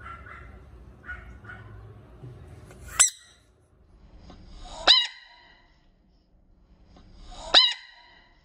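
Frogs giving three short, loud, high-pitched screams about two seconds apart, each rising out of a brief hiss, with faint small chirps before the first.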